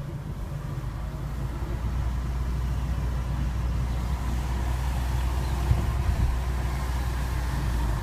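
Fiat Panda driving, a steady low engine drone with road noise that grows louder about two seconds in.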